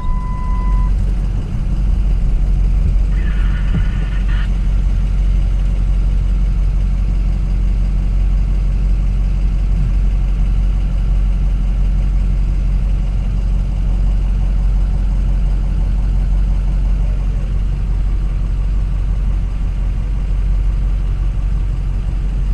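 Truck engine running with a steady low rumble heard from the cab. A single short beep sounds at the start, and a brief ringing tone comes about three seconds in.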